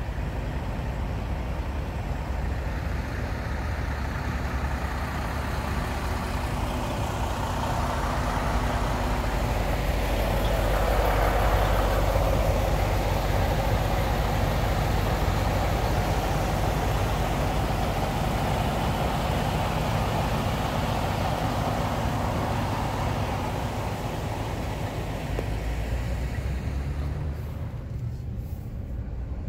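Idling diesel engines of parked semi trucks, a steady low rumble that grows louder midway and fades near the end.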